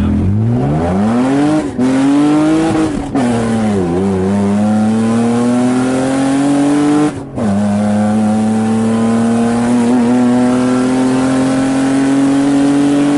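BMW E36's engine accelerating hard through the gears, heard from inside the car. The revs climb quickly, break off for brief upshifts about 2, 3 and 7 seconds in, and each higher gear is a longer, slower climb.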